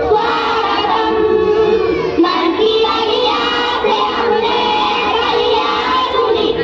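A group of schoolgirls singing a welcome song (swagat geet) in unison into handheld microphones, holding long notes with short breaths between phrases.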